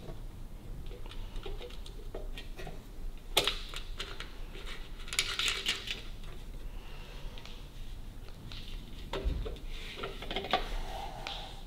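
Irregular small clicks, taps and scraping as fingers work a lamp and its rubber gasket into place on a steel motorcycle mudguard, with one sharper click about three and a half seconds in.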